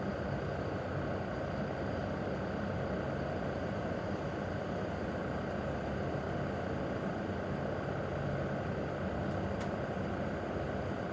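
Mitsubishi Heavy Industries SRC2221T air-conditioner outdoor unit running steadily in cooling mode: the propeller fan's whoosh over a low steady hum from the inverter-driven single rotary compressor. A faint tick comes about nine and a half seconds in.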